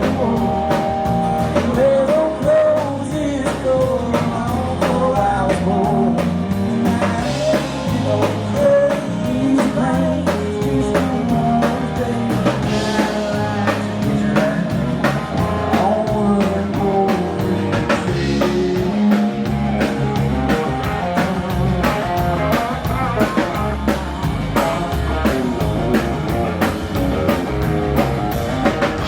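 Live band playing an instrumental break in a country-rock song: a guitar lead over a steady drum beat and bass.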